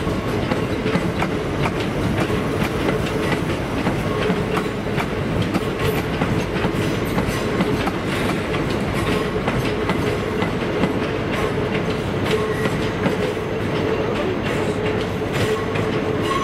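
Great Northern electric multiple unit rolling along a platform road, its wheels clicking over rail joints in a steady run of clicks over a continuous rumble and a steady hum.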